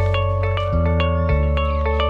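Background music: quick ringing struck notes, several a second, over a held bass line that shifts pitch about every half second.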